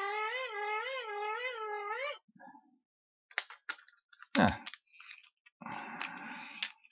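The hand-cranked dynamo of a wind-up LED torch, turning freely after repair, whines as the crank is turned. Its pitch rises and falls with each turn, about twice a second, and it stops about two seconds in. After that come a few clicks, one louder knock and a short rattle as the torch is handled.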